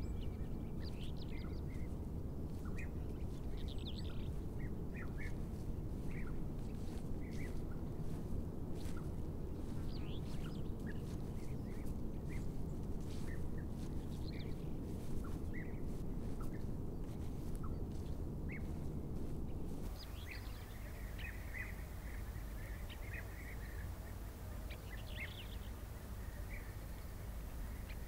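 Small birds chirping in short, scattered calls over a steady low outdoor rumble. About twenty seconds in, the rumble drops and the chirps come in a closer cluster.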